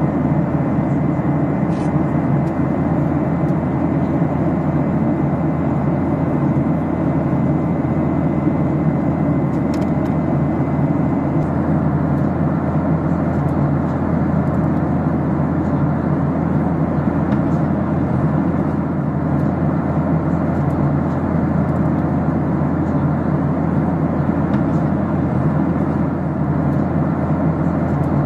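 Steady engine and airflow noise inside the cabin of an Airbus A320 in flight, a dense even hum that does not change.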